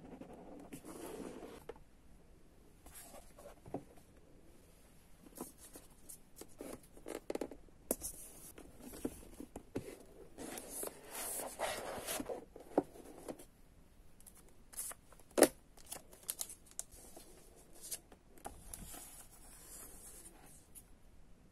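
Cardboard laptop box being opened and handled by hand: scattered scrapes, rustles and light taps, busiest between about ten and thirteen seconds in, with one sharp click about fifteen seconds in.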